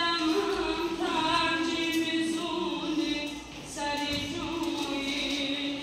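A boy singing solo, holding long, sustained notes with short slides in pitch between them.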